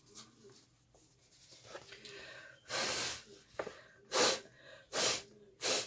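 Hand-pump spray bottle misting water onto painted paper: four short hissing sprays, the first about three seconds in and the longest, the rest following roughly a second apart.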